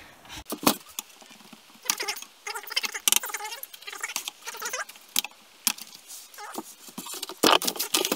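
Hard plastic heater box of a VW Golf Mk2 being handled and turned over on a workbench: an irregular run of clicks, knocks and short scrapes of plastic parts, the loudest cluster about seven and a half seconds in.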